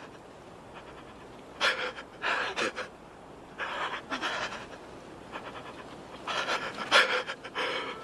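A person panting heavily, in several groups of hard, noisy breaths, with a sharp smack about seven seconds in.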